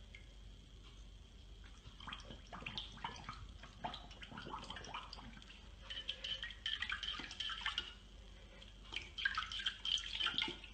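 A puppy paws and splashes at the water in its bowl, with irregular sloshes, drips and clicks starting about two seconds in and busiest near the end.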